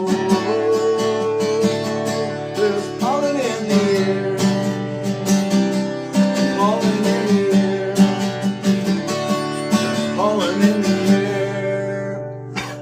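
Acoustic guitar strumming the song's accompaniment in a steady rhythm, with some wordless singing gliding over it, dying away near the end.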